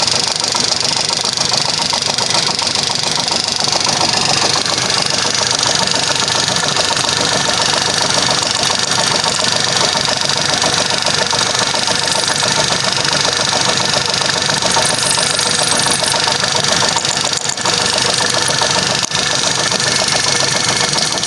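Old Atlas metal lathe running steadily at a constant speed while a twist drill bores into a stainless steel rod held in its collet.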